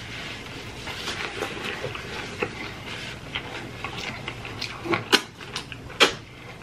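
Chewing and wet lip smacking from people eating burgers: a run of soft mouth clicks, with louder smacks about five and six seconds in.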